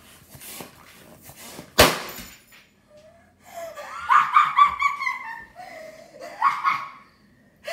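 A latex modelling balloon pops with a single sharp bang about two seconds in, followed by a shriek and laughter.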